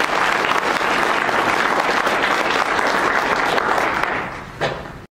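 Audience applauding, a dense steady clapping that dies away after about four seconds, with one last sharp sound, then cuts off abruptly.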